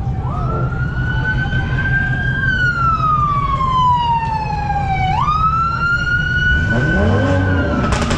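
An emergency siren wailing: its pitch jumps up, holds, then glides slowly down, twice. Underneath are the low, steady rumble of running car engines and a short engine rev near the end.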